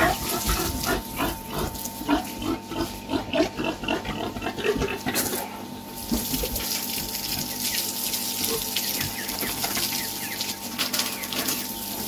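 Pigs grunting rapidly and repeatedly as a garden hose sprays water over them; the grunting dies down about five seconds in, leaving the steady hiss of the spray.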